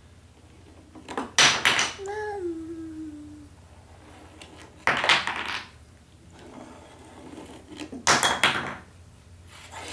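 Toy blocks knocked and set down on a wooden tabletop: three short clattering bursts, about a second in, at about five seconds and at about eight seconds.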